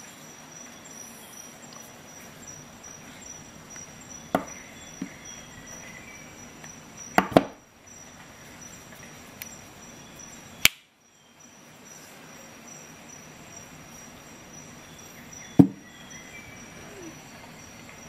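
Scattered sharp clicks and knocks from an HX Outdoors GJ-06 folding knife-and-scissors multi-tool being handled and closed. There is a quick double click about seven seconds in, and a louder knock near the end as the tool is set down on a desk, over a faint steady hiss.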